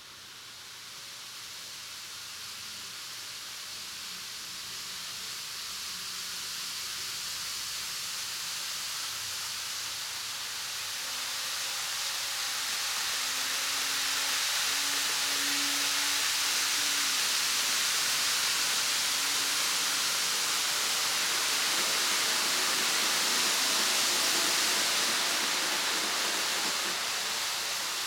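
A steady rushing hiss swells in from near silence over the first dozen seconds, stays loud, and eases slightly near the end, with a faint low hum in the middle.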